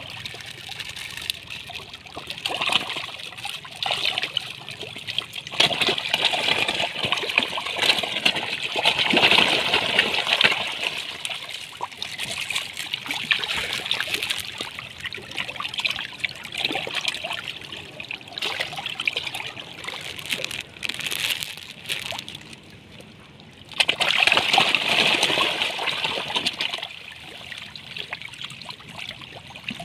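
A crowd of catfish thrashing and splashing at the water surface: continuous churning, slapping water that swells and fades, with a brief lull a little after twenty seconds in before it surges again.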